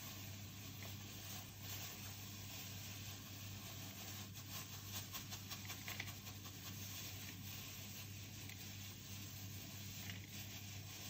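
Chopped nuts tipped into a mixing bowl: a light patter and scraping of small pieces for a couple of seconds near the middle, over a steady low hum.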